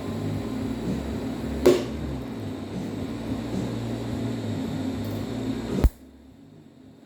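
Steady buzzing hum and hiss of a TIG welder running as a nut is tack-welded in, with a sharp click about two seconds in. The sound stops abruptly near the end.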